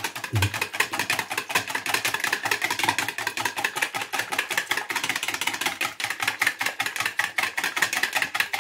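Wire whisk beating eggs in a plastic bowl: a fast, steady clicking of about six strokes a second.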